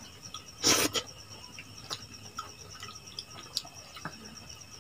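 Eating by hand: small wet mouth and finger sounds of chewing and smacking, with a short louder smack about half a second in and scattered light clicks after. A high, steady, pulsing insect trill runs underneath.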